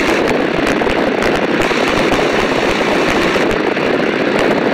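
Tiger Moth biplane in cruising flight: the steady, loud rush of slipstream wind and the de Havilland Gipsy Major four-cylinder inverted inline engine running at constant power, with wind buffeting crackling on the microphone of an open cockpit.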